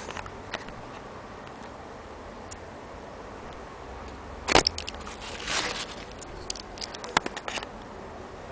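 Handling noise: a sharp click about halfway through, a short rustle just after it, and a few lighter clicks a little later, over a steady background hiss.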